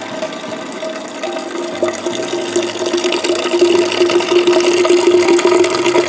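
Beer wort pouring in a steady stream from a Robobrew all-in-one brewer's drain valve into a keg, splashing into the liquid already inside. About a second in a steady hollow ring comes in and grows louder as the keg fills.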